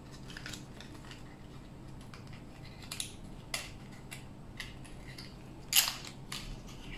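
Hands working open the plastic packaging of a lip tint: scattered small clicks and crinkles, with one sharp crackle, the loudest, near the end.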